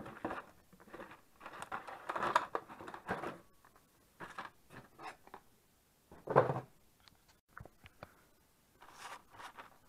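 A cardboard box and plastic blister-packed carburettor repair kits being handled: irregular rustling and crinkling, busiest in the first three seconds, with one louder short sound about six and a half seconds in as packs are set down on the metal bench.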